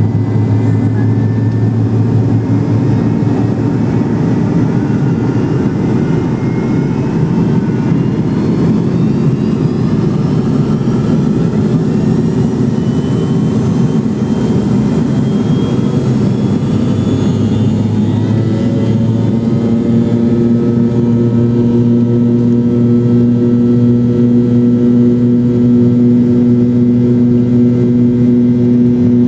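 Cabin sound of an MD-87's rear-mounted Pratt & Whitney JT8D turbofans spooling up for takeoff: a whine rises through the middle, then about two-thirds in it settles into a steady, slightly louder drone with several held tones.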